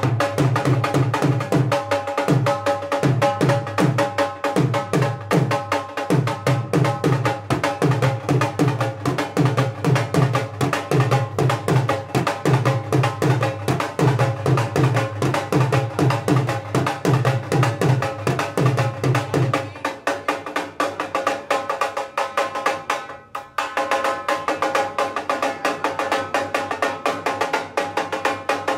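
Dhol drum beaten in a fast, even rhythm, about four strokes a second, with a steady droning tone underneath. The deep bass strokes drop out about two-thirds of the way through, and lighter, sharper beats carry on.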